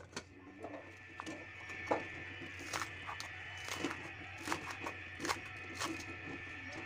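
Kitchen knife slicing spring onions on a bamboo cutting board, a sharp knock each time the blade hits the board, about once a second, over a steady high-pitched hum.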